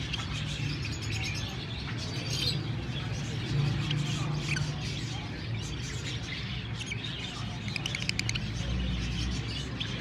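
Caged lovebirds giving short, high chirps now and then over a steady low hum.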